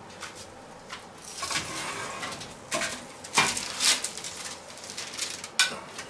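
Scattered light knocks and clicks of kitchen handling, a handful of separate taps at irregular times over a faint background hiss.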